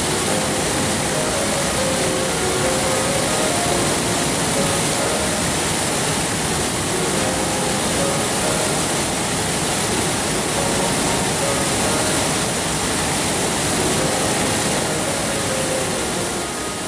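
Steady rush of whitewater pouring over a river drop and churning in the hydraulic below, with faint held tones underneath. It begins to fade near the end.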